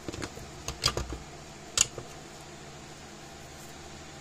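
Sharp clicks and light knocks as a transformer is worked loose and lifted off an electric fence charger's circuit board, the loudest snap about two seconds in. After that only a steady low hum remains.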